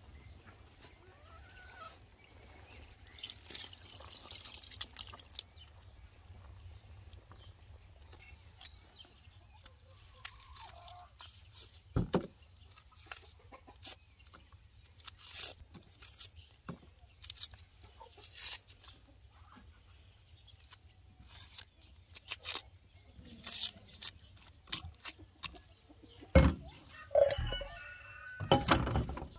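Chickens clucking in the background over scattered clicks and knocks from hand food preparation: a knife working on onions and dishes being handled. Louder knocks come near the end.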